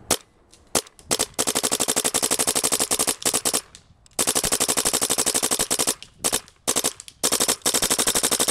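Macdev Clone spool-valve electronic paintball marker firing in PSP 12.5 burst mode: a few single shots, then long strings of rapid shots at about twelve a second, broken by short pauses.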